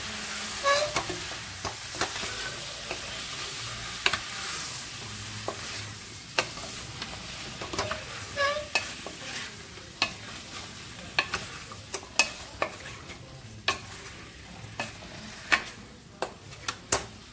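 Food sizzling as it fries in a stainless steel pan while a spatula stirs it, with irregular scrapes and knocks of the spatula against the pan.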